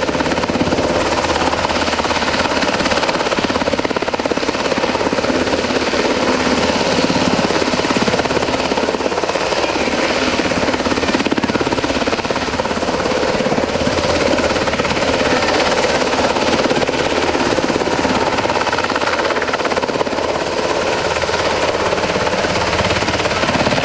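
Sikorsky HH-60G Pave Hawk helicopter flying close by, its main and tail rotors beating in a fast, steady chop over the whine of its twin turboshaft engines.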